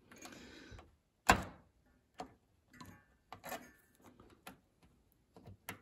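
Small screwdriver and fingers clicking and scraping against a gas hob's control-knob spindle and its dust seal while the seal is worked into place. One sharp click about a second in is the loudest, followed by fainter clicks and taps roughly every second.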